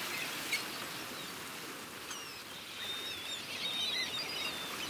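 Seaside sound effects: a steady wash like sea surf, with small birds chirping through the middle of it and a brief tick just after the start.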